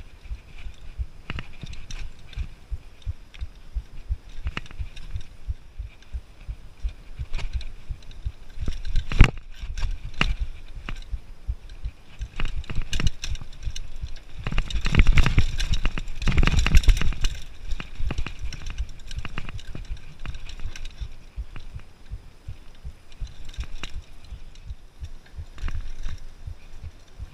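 Mountain bike rattling and knocking continuously as it rolls over rough, rocky dirt trail, heard close up from an onboard camera with a low rumble on the microphone. The clatter is loudest for a few seconds about halfway through.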